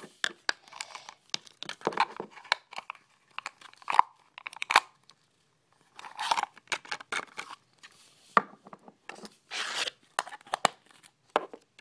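Plastic wrapper of a toy blind pack being torn open and crinkled by hand: a run of short sharp rips and crackles, with a brief pause about five seconds in.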